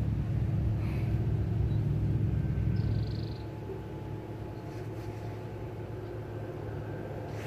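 A steady low engine drone that eases a little after about three seconds in.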